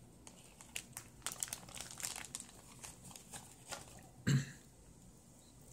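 A cat chewing and licking at small scraps of turkey meat: a run of small, quick wet clicks and crunches. About four seconds in, a short cough-like voice sound is the loudest thing.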